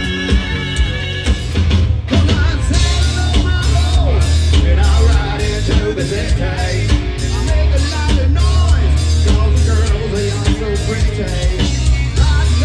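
Live rock band playing through a PA: a lead singer over electric guitar, bass guitar and drum kit, with heavy bass. The vocals come in about two seconds in.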